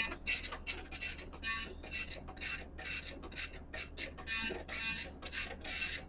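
JRC NKG-900 Inmarsat-C dot-matrix printer printing, its print head buzzing across the paper in short line-by-line passes, about four a second. It stops near the end.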